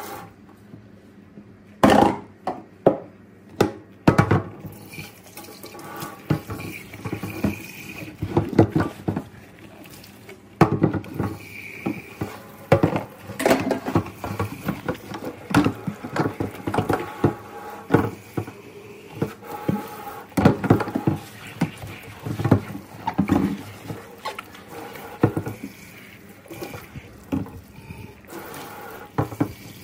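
Dishes being washed by hand in a stainless steel sink: irregular knocks and clinks as a tall jug is handled against the steel, with water splashing and running.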